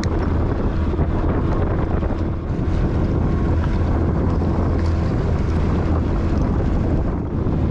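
Small fishing boat's motor running steadily while under way, a constant low hum, with wind buffeting the microphone and water rushing along the hull.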